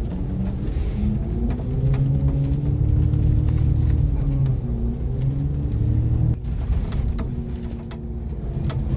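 Bus running with passengers aboard: a steady low engine rumble with whining tones that rise and fall in pitch. The rumble drops off suddenly about six seconds in.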